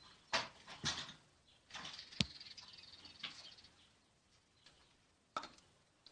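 Slime being squeezed and poked by hand: a few short squishy bursts, a sharp pop about two seconds in, then a run of fine crackling.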